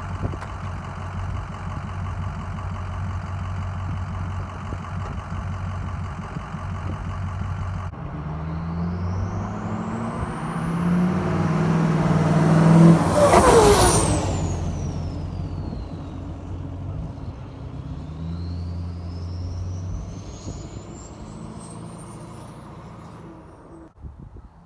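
Ford 6.0 Power Stroke V8 turbodiesel pickup running steadily, then accelerating past. A high turbo whistle climbs in pitch to the loudest point about halfway through, drops in pitch as the truck goes by, then climbs again as it pulls away and fades.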